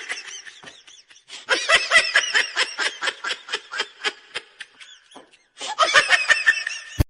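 A person laughing hard in quick, high-pitched pulses, in three bouts with short breaks between them.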